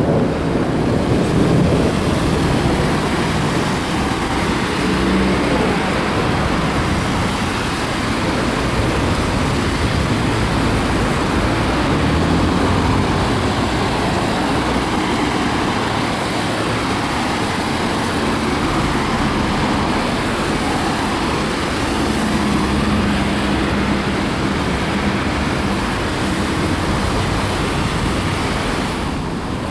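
Steady road traffic on a rain-soaked street: cars and a bus passing, their tyres hissing on the wet asphalt.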